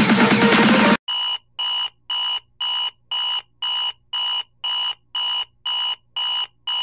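Electronic dance music cuts off about a second in, then an electronic alarm beeps steadily: a high-pitched beep about twice a second, a dozen times.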